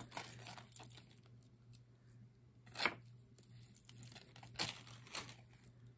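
Clear plastic zip-top bag crinkling and rustling in short bursts as gold chain necklaces are pulled out of it, with a few louder crinkles about three seconds and five seconds in.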